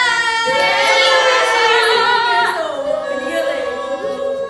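Female voices singing a sholawat, an Islamic devotional song praising the Prophet, in long held notes with a wavering vibrato.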